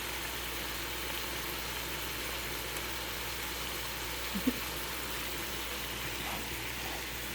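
Steady hiss of steak sizzling in a pan on the stove, over a constant low hum. A faint short squeak about four and a half seconds in.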